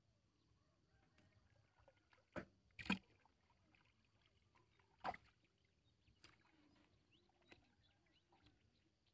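Near silence broken by a few short, sharp splashes as a hook line is hauled up out of the water beside a small boat. The loudest come about two and a half and three seconds in, with another about five seconds in and fainter ones after.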